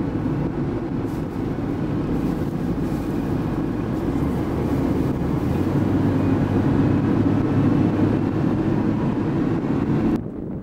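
Car driving at highway speed, heard from inside the cabin: steady engine and road noise that grows a little louder past the middle and cuts off abruptly shortly before the end.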